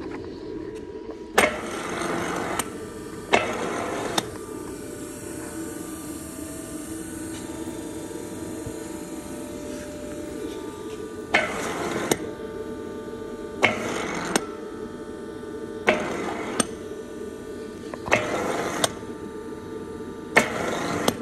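Heinrich Frey Jobber-50 vacuum filling machine running with its hopper empty: a steady motor hum with a few steady tones. Over it come short noisy bursts, each starting with a sharp click and lasting under a second. Two come early, then about every two seconds after the control panel is worked, as the machine cycles.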